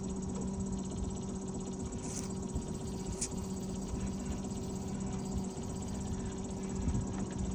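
Steady mechanical hum from a boat motor, with a faint constant high whine over low rumbling noise. The lowest tone drops away for a couple of seconds past the middle.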